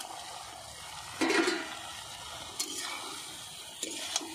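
Fried potato and pointed gourd pieces sliding from a steel bowl into a wok of hot masala, sizzling, with several scrapes and knocks of metal on metal. The loudest comes about a second in.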